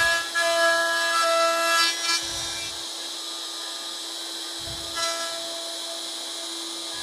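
DeWalt router running at speed with a steady whine as it routes the J-slot in a wooden yarn bowl, louder for the first two seconds or so, then running quieter and steadier.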